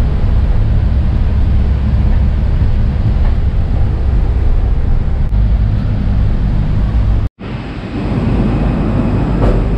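Passenger van heard from inside its cabin while driving: steady engine and road rumble with wind buffeting the microphone. It cuts off suddenly about seven seconds in, giving way to a steadier background hum with faint high tones.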